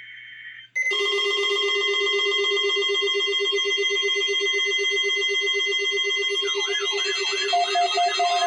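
Midland 74-200 weather alert radios going off for a weekly test: a short buzzing data burst ends, and about a second in several electronic alarm beeps start at once, layered and rapidly pulsing. A second, warbling alarm tone joins about two-thirds of the way through.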